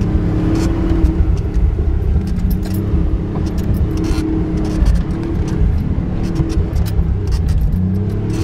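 Jeep engine running steadily, heard from inside the cab as it drives along a snowy trail, with frequent light rattles and clicks from loose parts and items in the cabin.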